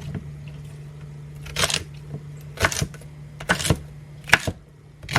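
Kitchen knife chopping celery on a cutting board: five sharp cuts about a second apart, some landing as quick double knocks.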